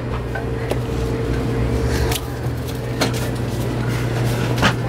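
Steady low machine hum with a faint steady tone, under a few sharp clicks and knocks about two, three and nearly five seconds in, as plastic live-bait cups are taken out of a bait refrigerator.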